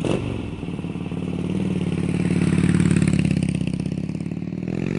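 Motorcycle engine running and revving: it swells to its loudest around the middle, eases back, then rises in pitch again near the end.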